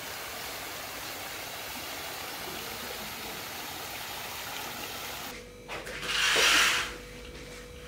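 Steady rush of water spilling from a wall cascade into a swimming pool. After a change of scene, a loud fabric swish about six seconds in as curtains are pulled open, over a faint steady hum.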